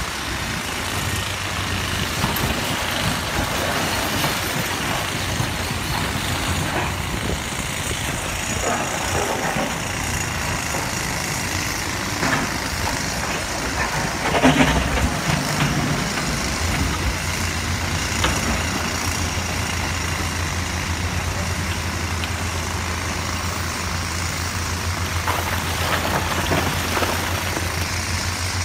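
Komatsu PC450 hydraulic excavator's diesel engine running steadily under load while it digs in broken rock, with rock knocking and clattering around the bucket and one brief louder crash about halfway.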